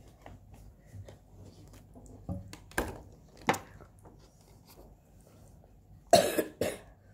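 Paper packaging being handled: a few sharp taps and knocks, then a louder short rustling burst about six seconds in, followed quickly by another.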